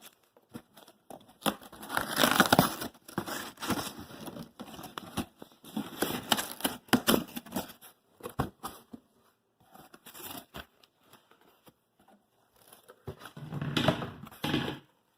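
Cardboard box and its packaging being opened by hand: irregular tearing and crinkling, with short pauses between bursts.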